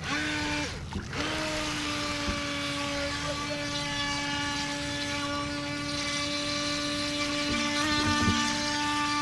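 Force1 Velocity RC boat's electric motor whining at a steady pitch, cutting out for about half a second near the start, then running on evenly at speed.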